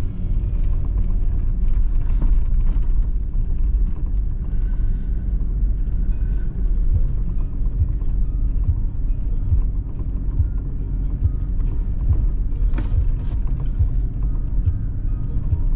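A vehicle driving slowly up a snow-covered road: a steady low rumble of engine and tyres working through the snow, with scattered short knocks.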